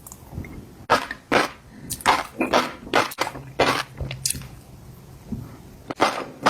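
Close-miked eating: a string of crisp, crunchy bites and chewing, with sharp bursts coming irregularly about one to two times a second.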